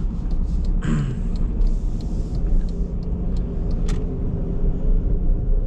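Jeep running along the road: a steady low engine drone with road rumble, and a few light clicks and rattles.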